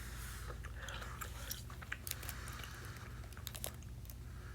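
A person chewing a square piece of candy close to the microphone, with scattered small wet clicks and smacks of the mouth.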